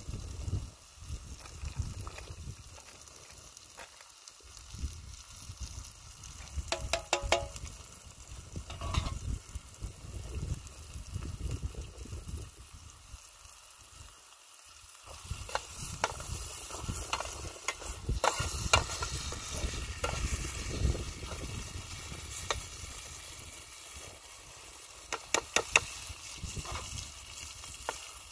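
Food sizzling in a pan while it is stirred, with a steady hiss and sharp clinks of a utensil against the pan every few seconds, one of them ringing briefly.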